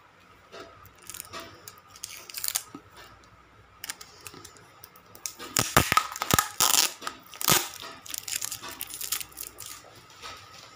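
Plastic wrapping on paperback novels being handled, giving a run of scattered sharp rustles and crackles that are busiest and loudest from about five and a half to eight seconds in.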